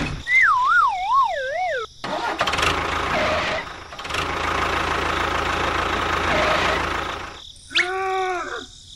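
Added sound effects. First a wavering tone that slides downward for about two seconds, like a cartoon failure sound. Then several seconds of a vehicle engine running, and near the end a short pitched cry that rises and falls.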